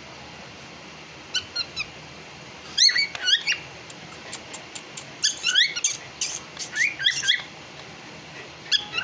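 Cockatiel chirping in short clusters of quick, rising, squeaky notes, five bursts spread through the stretch, with a few faint sharp clicks between them.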